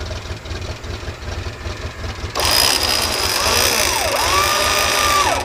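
Offroad Suzuki Sidekick 4x4's engine idling with a low pulsing rumble. About halfway through, an electric winch motor switches on with a loud hissing whine that rises and falls in pitch, holds, then cuts off sharply near the end.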